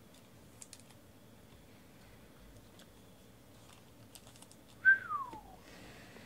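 Faint scattered clicks and rustles of trading cards being handled, then about five seconds in a single short whistle that falls in pitch, the loudest sound here.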